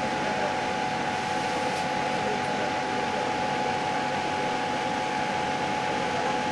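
Laser cutting machine running while cutting: a steady fan-like whir with a constant high hum tone running through it.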